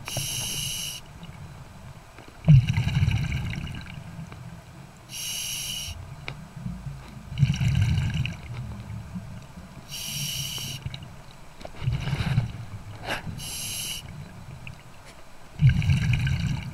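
Scuba diver breathing underwater through a regulator, four breaths. Each breath is a short high hissing whistle on the inhale, followed by a low rumble of exhaled bubbles.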